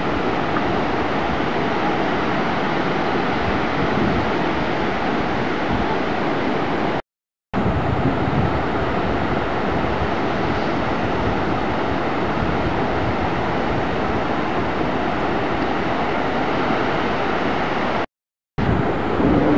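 Steady rush of breaking ocean surf with wind on the camcorder microphone, cut twice by about half a second of silence.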